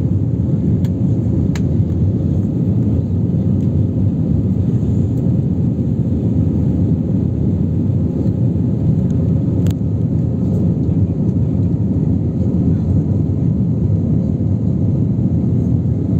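Steady low rumble of an Airbus A321neo's engines and rushing air, heard inside the passenger cabin as the jet climbs after takeoff.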